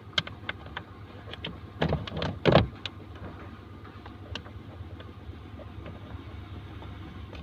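Light clicks and a few short knocks as the blower fan motor housing and its first mounting screw are handled under the dashboard, the two loudest knocks about two seconds in, over a steady low hum.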